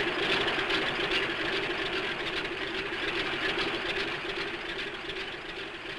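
Propeller airplane engine running steadily, a sound effect on an old cartoon soundtrack, easing off slightly in the second half.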